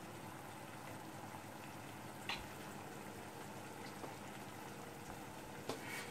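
Boiled bottle gourd cooking in a pan with fried onion and tomato: a faint, steady bubbling sizzle. Two light clicks, about two seconds in and near the end.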